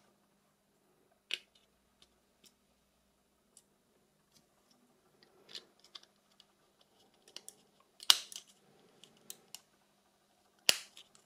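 Scattered small clicks and taps from handling a Nokia 6300's casing parts during reassembly. Sharper snaps come about a second in, around eight seconds in and near the end, over a faint steady hum.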